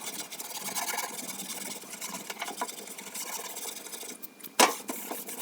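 Fine 0000 steel wool scrubbing rust off a steel toolbox lid in repeated rubbing strokes, followed by a sharp knock about four and a half seconds in.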